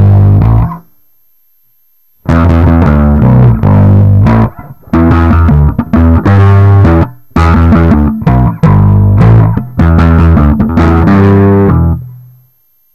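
Warwick RockBass Streamer electric bass played fingerstyle through a Korg Pandora PX5D multi-effects unit, its strings freshly boiled clean. A riff in short phrases, with a pause of about a second and a half near the start, ending on a held low note just before the end.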